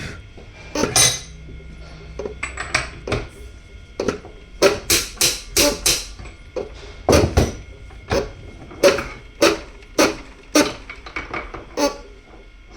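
Metal parts and hand tools clinking and tapping against each other, a run of sharp irregular knocks that comes about one to two a second from about four seconds in.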